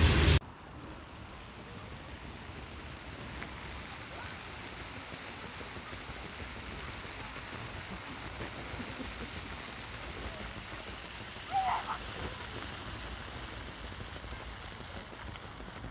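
Steady hiss and splatter of floor-fountain jets falling onto wet paving. About three-quarters of the way through, a distant voice calls briefly.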